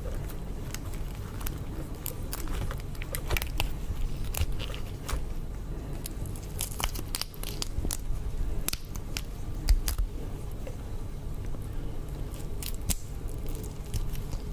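Close-miked crackling and crunching of cooked prawn shells being handled and broken, with irregular sharp clicks and snaps.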